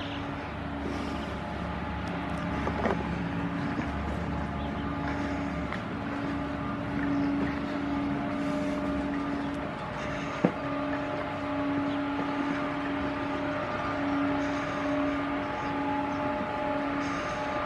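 Electric locomotive drawing slowly closer, giving a steady electrical hum that swells and fades by turns over a haze of running noise. A single sharp click comes about ten seconds in.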